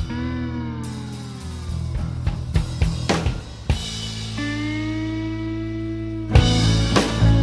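Background music: a rock track with drum kit and sustained, bending guitar notes, the drums dropping out in the middle and coming back in near the end.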